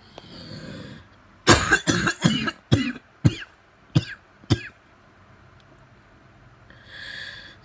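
A person coughing in a fit: a wheezy breath, then a run of about seven coughs that thin out into single, spaced coughs, then a deep wheezing breath near the end. The coughing was set off while eating porridge and has brought on an asthma flare, heard as the wheeze.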